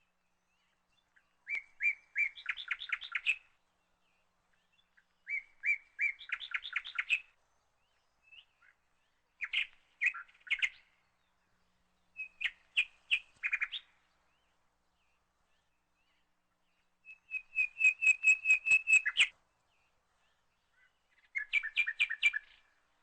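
A songbird singing six short phrases, each a quick run of repeated chirping notes lasting one to two seconds, with silent gaps between them.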